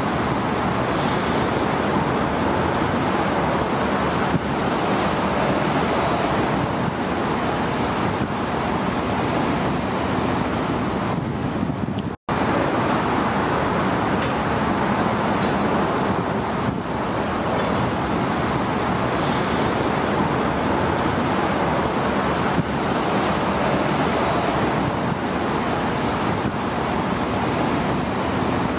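Steady outdoor noise wash of harbour water and road traffic, with no bird calls; it cuts out for a split second about twelve seconds in.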